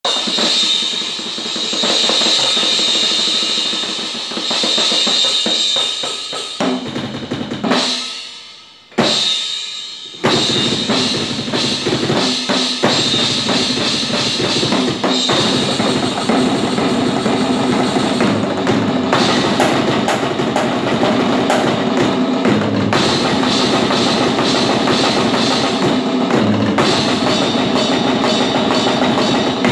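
Drum kit played hard, with bass drum, snare and cymbals. The playing breaks off about eight seconds in and comes back in about two seconds later.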